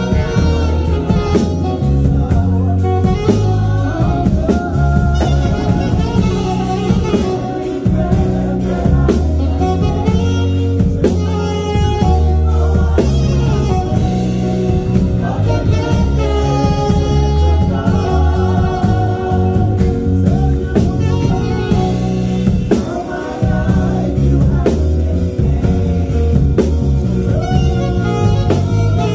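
Live band playing: electric bass guitar with a repeating low line and a drum kit keeping time, with a voice singing over them.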